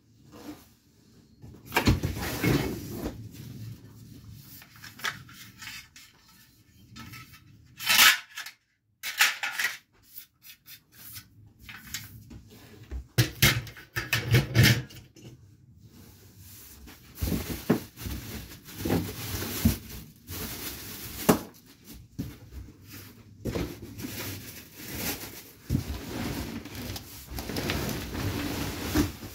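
Unpacking a table saw from its box: irregular knocks, clacks and rustling as packaging and parts are handled and set down. The sharpest clack comes about eight seconds in.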